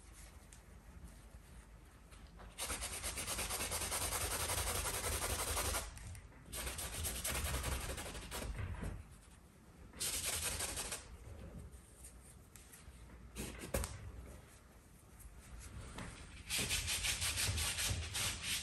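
Oil paint being scrubbed onto a stretched canvas with a brush: a scratchy rubbing in four bursts of quick back-and-forth strokes, the longest about three seconds.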